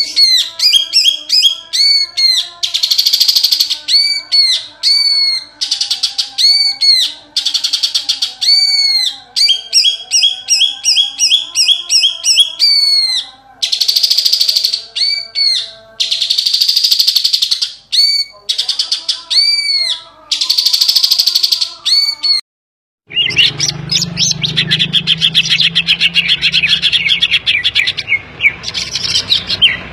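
Green leafbird (cucak ijo) singing loudly: quick runs of arching whistled notes, its song filled with imitated calls of other birds (kapas tembak and tengkek). About 23 s in, the song breaks off briefly and resumes as a faster, denser chatter over a low hum.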